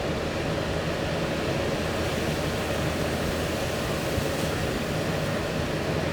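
A steady mechanical drone, even throughout.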